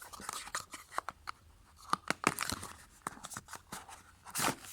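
Small cardboard box and plastic packaging being opened and handled by hand: scattered crackles, taps and tearing, with a short louder rustle near the end.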